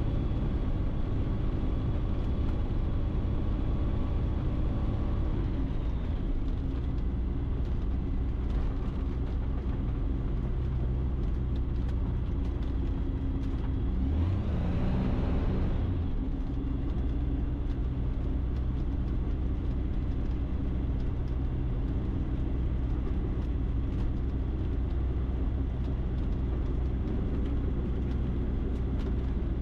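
Ikarus C42 light aircraft's engine and propeller running steadily at low power while the aircraft lines up and holds before take-off, heard through the cockpit intercom. Its deep, even drone swells briefly about halfway through.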